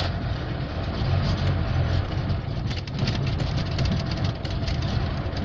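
Classic Lada Zhiguli four-cylinder carburettor engine, just caught on choke in a cold start, running unevenly at low revs. It is an engine only just thawed after water froze in its block, and it starts but will not keep running.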